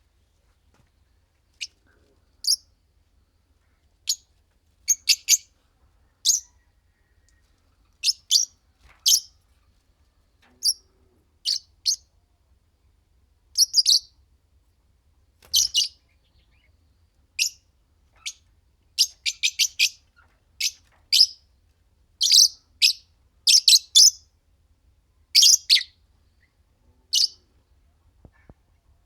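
Fischer's lovebirds chirping: short, sharp, high-pitched calls, single at first and then in quick runs of several, coming more often in the second half.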